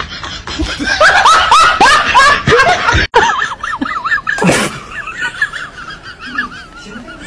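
A person laughing hard: a quick run of repeated ha-ha bursts, the loudest part, broken off by a sudden cut, followed by quieter wavering high-pitched sounds.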